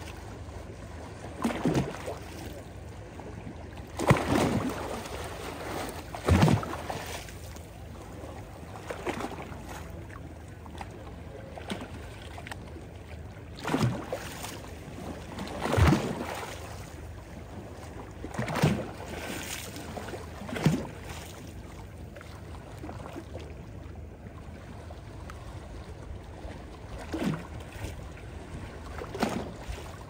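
Small waves lapping at a stony shore in a calm sea: a steady wash broken every few seconds by a short splash.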